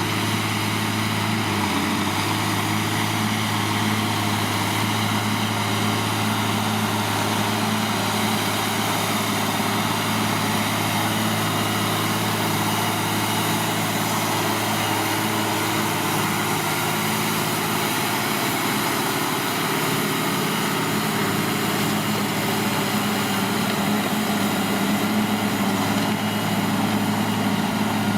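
New Holland tractor's diesel engine running steadily under load while ploughing, with an even, unbroken engine note.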